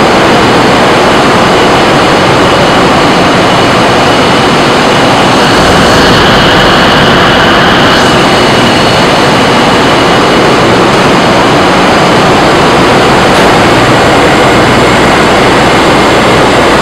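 Loud, steady din of a large container ship's engine-room machinery, a dense rushing noise with a few faint steady whines on top. A stronger hiss swells for about two seconds near the middle.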